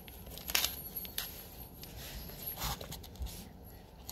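Crinkly plastic snack-cracker wrapper being handled: a few short crackles.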